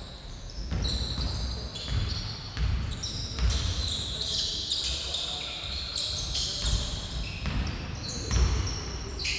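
A basketball bouncing on a wooden sports-hall floor as players dribble, with short thuds and the high squeaks of sneakers on the court.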